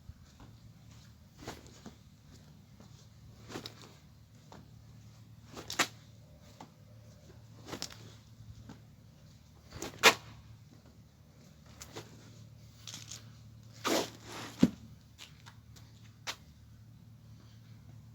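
A person working through one-arm alternating kettlebell swings: short sharp knocks and rustles recur about every two seconds over a low steady hum, the loudest about ten seconds in and a pair close together near fourteen seconds.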